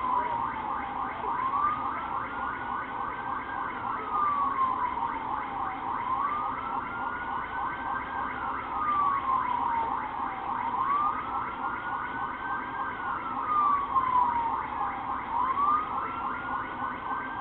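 Police car siren sounding a slow wail, its pitch rising and falling about every four and a half seconds, about four times, over a steady low hum.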